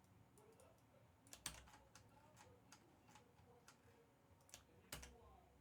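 Faint computer keyboard typing: scattered key clicks, with two louder clicks about one and a half seconds in and near the end.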